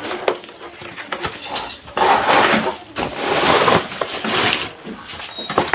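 Packaging rustling and crinkling as a ring light is unpacked, in two long stretches with scattered clicks and knocks.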